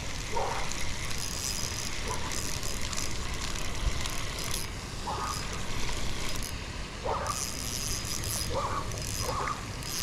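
Spinning reel being cranked as a hooked bass is reeled in, the reel's handle and gears turning steadily, with a few short squeaks scattered through.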